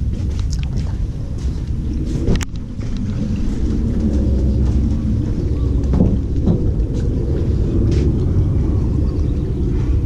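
A steady low engine rumble, typical of a boat motor on a canal, that begins suddenly after a sharp click about two and a half seconds in. Before that there is quieter, more uneven low noise.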